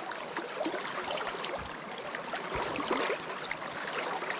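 Flowing creek water running steadily, with many small irregular splashes and trickles close by.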